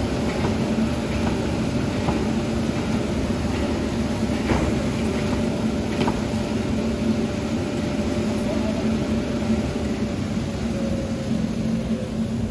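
Automatic corrugated-carton folder-gluer-stitcher machine running: a steady mechanical hum of motors and belts, with a few sharp clicks spread through it.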